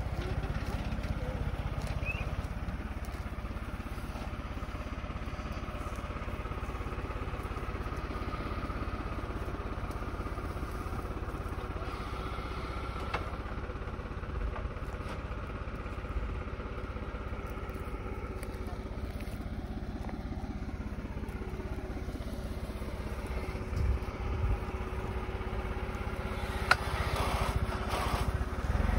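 Tractor engine running steadily, driving the hydraulics of a tractor-mounted olive tree shaker. A falling tone comes about two-thirds of the way through, and a few sharp knocks come near the end.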